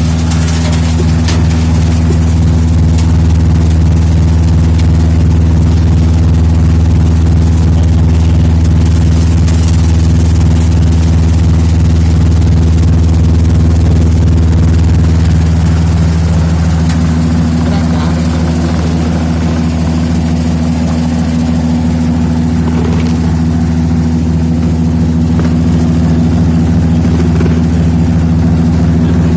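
Candlenut and nutmeg cracking machine running steadily, its drive giving a constant low hum with faint scattered clicks over it.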